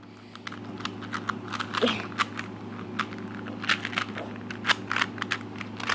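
Plastic Rubik's Cube being scrambled by hand: its layers twisted quickly, giving an irregular run of sharp clicks and clacks, several a second.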